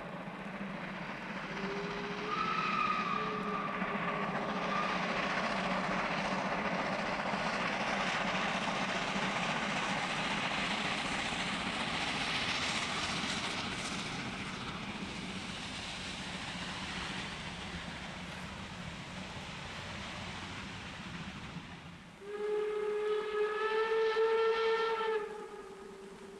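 Steam train running past, a steady loud rush of exhaust and train noise, with a short whistle about two seconds in. Near the end, after a break, the steam whistle of DR class 03 locomotive 03 2204 sounds one several-toned blast of about three seconds.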